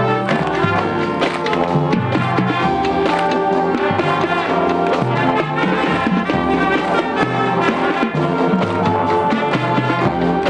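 A live band of alumni players performing a tune, with brass prominent over a moving bass line and no pauses.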